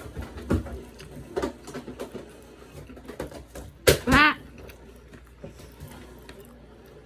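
Close-up eating noises from a bowl of black bean noodles: scattered small clicks and taps of utensils and mouth sounds. Just before four seconds in there is a sharp click followed by a brief pitched voiced sound, the loudest moment.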